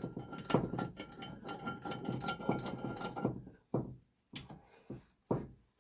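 Central Forge 4-inch drill press vise being worked by hand: metal clicking and rattling for about three seconds as the jaws are run together, then three separate knocks.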